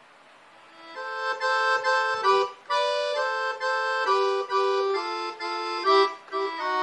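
Roland V-Accordion, a digital accordion, playing a short right-hand melodic phrase in parallel thirds, two notes at a time. The phrase starts about a second in and ends on a held chord.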